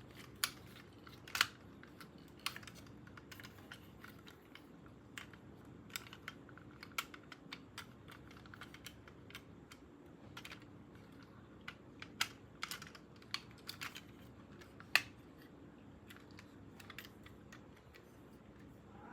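Irregular light clicks and taps of hard plastic being handled: toy parts and packaging in a toy unboxing, with a few sharper snaps among them.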